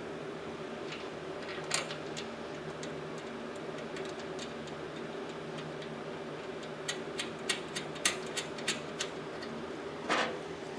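Small metal clicks and clinks of hardware as cable holders are fitted onto a steel welding cart: a single click early, a quick run of clicks about seven seconds in, and a louder metal scrape near the end, over a steady low hum.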